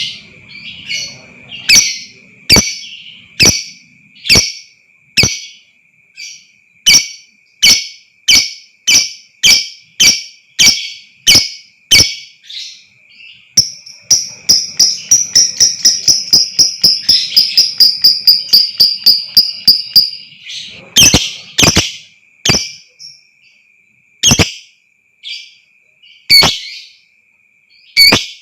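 Lovebird chattering: sharp, shrill chirps about twice a second, then from about 14 s a fast, rapid-fire trill lasting some six seconds, the long 'ngekek', followed by a few scattered chirps. A steady faint high tone runs underneath.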